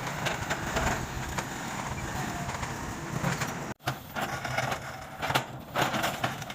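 Diesel engines of road-construction machinery running, with scattered knocks and clatter. The sound cuts out for an instant a little over halfway through, then resumes with louder swells.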